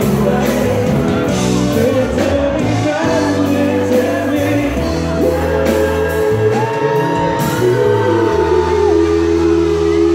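Live pop band and singer performing through a concert PA, with shouts from the audience around the recording phone. A long held sung note near the middle falls away at its end.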